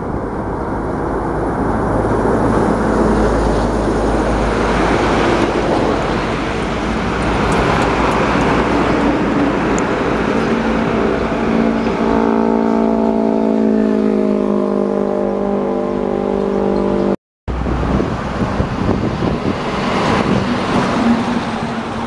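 Heavy diesel trucks on the road: a close pass of a loaded truck with engine and tyre rumble, then a diesel engine's pitched drone building over several seconds. The sound cuts out abruptly for an instant about seventeen seconds in, and more passing-traffic noise follows.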